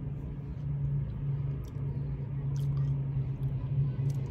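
Road traffic from a busy street: a steady low engine hum over a rumble. A few faint clicks sound over it.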